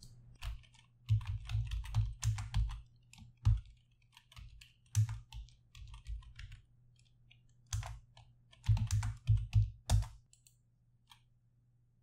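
Computer keyboard typing, in three short runs of keystrokes with pauses between, entering a shell command; the typing stops about ten seconds in.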